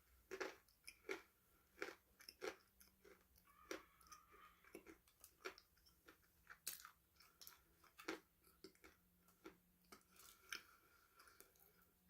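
A person chewing crunchy food close to the microphone, with irregular crisp crunches about once or twice a second.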